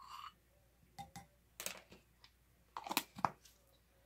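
Light clicks and knocks of plastic measuring spoons and a small ingredient jar being handled and set down on a tabletop while dry ingredients are measured, a few sharp taps about a second in and a quick cluster near three seconds.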